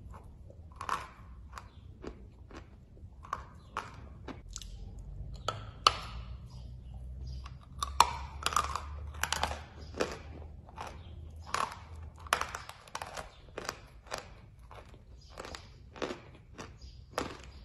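Chalk tiles being bitten and chewed close to the microphone: irregular crisp crunches and crackles as the chalk breaks between the teeth, with two sharper bites about six and eight seconds in.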